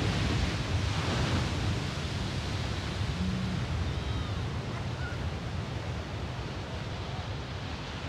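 Heavy ocean surf breaking and washing, with wind rumbling on the microphone; a little louder in the first second or so.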